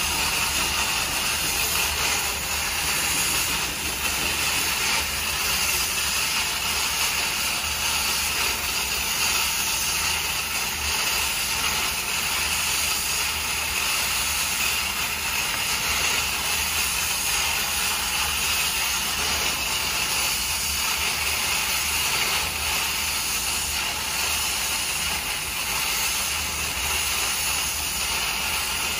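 Large steel cauldron of water at a full rolling boil: a steady, unbroken hissing with a low rumble underneath.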